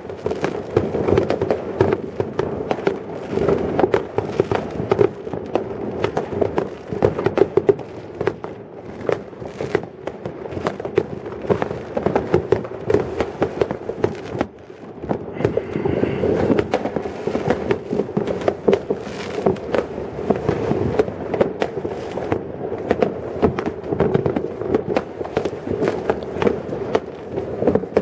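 Many fireworks going off at once: a dense, unbroken run of bangs and crackles, with a brief lull about halfway.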